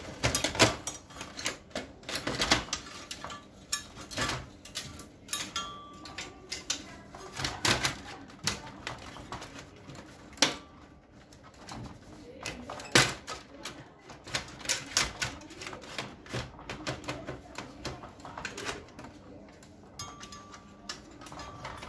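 Irregular clicks, knocks and clatter of a laser printer's sheet-metal frame and plastic parts being handled as the power supply assembly is aligned and pushed into its seat.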